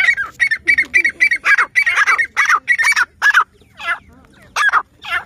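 Grey francolins calling: a fast run of loud, repeated notes, about five a second for roughly three and a half seconds, then three more notes spaced out near the end.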